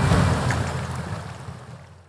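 A steady rushing noise that fades away to silence.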